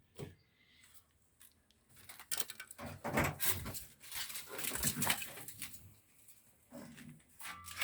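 Irregular light knocks, scuffs and rustles from handling the dropped washing machine, coming in a cluster after a couple of seconds of quiet.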